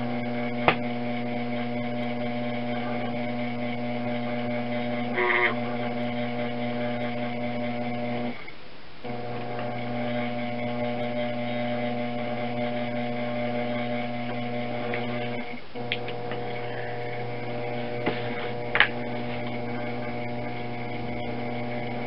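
Electric potter's wheel motor running with a steady electrical hum and several overtones, dipping out briefly about eight seconds in and again around fifteen seconds. A few brief clicks come over the top.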